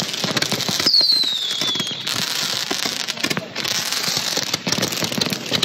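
Handheld firework tube shooting out sparks and shots, a dense, continuous hissing crackle with a falling whistle about a second in.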